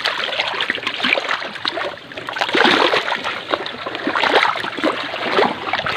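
Seawater splashing and trickling among intertidal coral rocks, an uneven rush broken by many small splashes.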